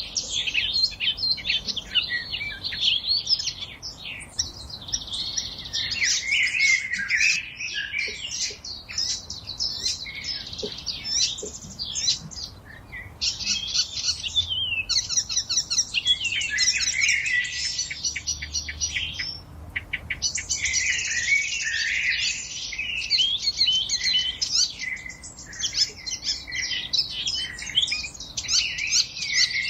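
Forest songbirds singing together in a dense chorus of quick, high chirps and trills that overlap almost without pause, briefly thinning twice in the middle.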